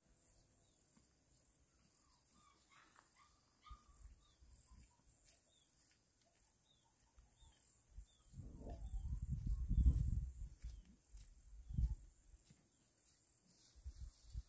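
Countryside insect chorus: a steady, high, pulsing trill, with short falling chirps repeated about twice a second. A louder low rumble comes in from about eight to twelve seconds in.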